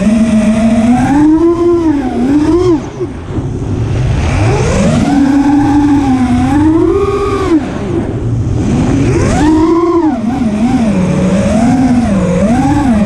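FPV racing drone's brushless motors and propellers whining, the pitch swooping up and down constantly with the throttle, easing off briefly about three seconds in and again about eight seconds in.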